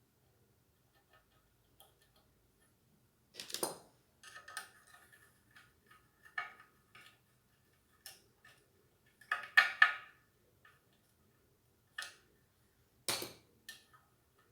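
Irregular clicks, knocks and light metallic clinks from handling ceiling-fan parts and small hardware during assembly. The loudest cluster of clinks comes just before the middle.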